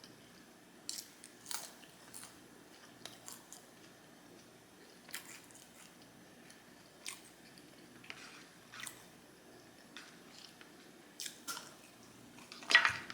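A person chewing food close to the microphone, with short crisp crunches scattered through, the loudest near the end.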